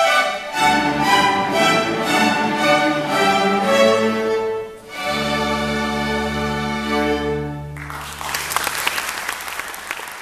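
Youth string orchestra of violins, violas, cellos and basses playing the closing bars of a piece: a run of repeated chords, then a long held final chord that cuts off about two and a half seconds before the end. Audience applause follows the cut-off.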